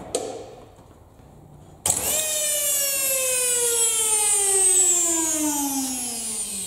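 A knock, then about two seconds in a vacuum cleaner motor starts with a sudden loud whine that falls steadily in pitch as it winds down. It is a test run after the motor's wires were swapped to try to make it run backwards.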